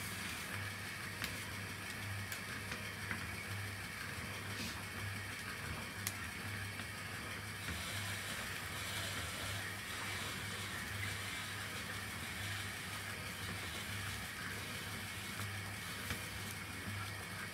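Seibu 2000 series side destination roll sign winding its film through the frames: the drive running steadily with a low hum that pulses regularly, the film scrolling past, and a few light clicks.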